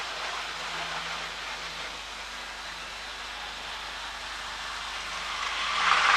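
Steady hiss with a faint low hum; then, from about five seconds in, an OO-gauge InterCity 125 (HST) model train running on the track, its motor and wheels growing quickly louder as it approaches.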